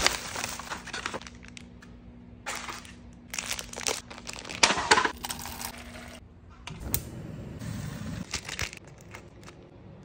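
Aluminium foil tray and its packaging crinkling and rustling in several short bursts while being handled and opened. Later, a softer stretch of water running into the foil tray.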